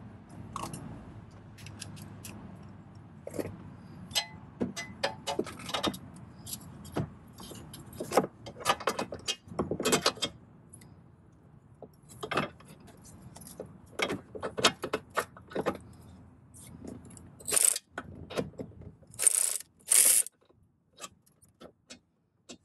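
Irregular metallic clicks and clinks of a hand wrench working a small bolt loose in a car's engine bay, with a few louder scrapes near the end.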